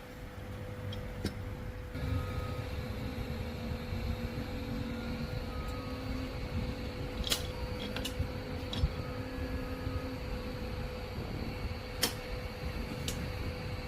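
A steady hum over a low rumbling background, with a few sharp clicks in the second half.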